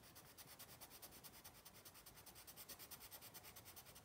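Faint scratching of a green coloured pencil shading on paper, in quick, even back-and-forth strokes.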